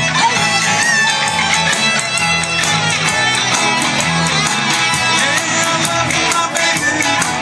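Live band playing a song cover, with electric guitars leading over bass and drums.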